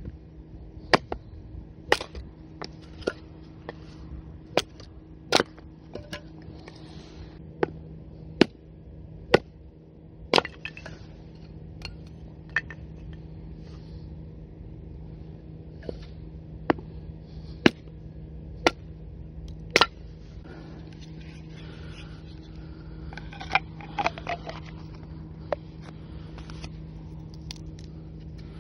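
Batoning kindling: a knife driven through firewood by repeated blows on its spine, splitting the wood, with sharp knocks about once a second. Near the end come a few softer clatters of split wood. A steady low hum runs underneath.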